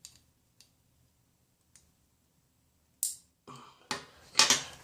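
Hand-work on a small vape coil and its tools: a few faint small clicks, then about three seconds in, louder irregular handling noises with sharp clicks.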